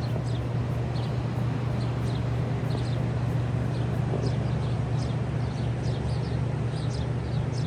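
Small birds chirping in short, quick downward notes, many in a row, over a steady low rumble and the hiss of the surf.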